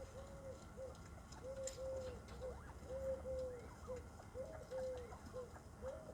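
A dove cooing over and over in three-note phrases, two drawn-out notes and a short one, each phrase about a second and a half apart, with a few faint clicks.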